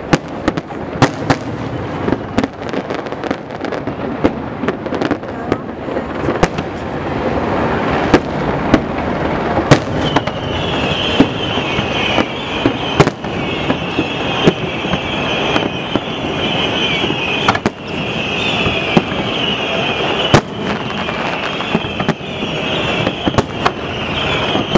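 Aerial fireworks shells bursting in a rapid series of bangs over a continuous rumbling din. About ten seconds in, a steady high-pitched hissing layer joins and carries on.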